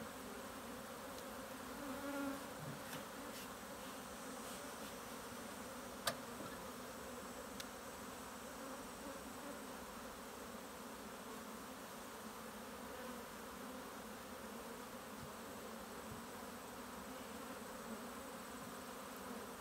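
Many honeybees buzzing around an open hive box in a steady, even hum. A single sharp click stands out about six seconds in.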